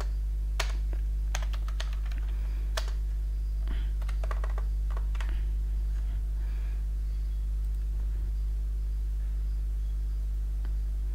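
Computer keyboard typing: scattered single keystrokes, most of them in the first half and sparser after that. A steady low electrical hum runs under them.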